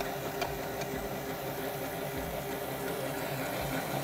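Electric stand mixer running steadily as it whips egg yolks and sugar until creamy, a constant motor hum. Two faint ticks come within the first second.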